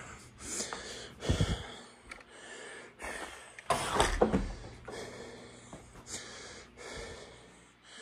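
A man's breathing: a series of audible breaths at uneven intervals, the loudest about four seconds in.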